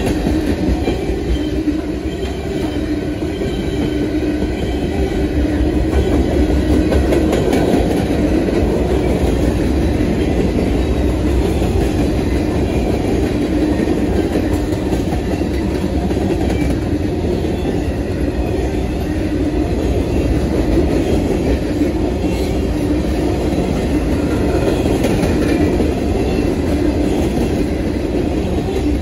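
Freight train cars rolling past, with a steady, continuous clatter of steel wheels over the rails.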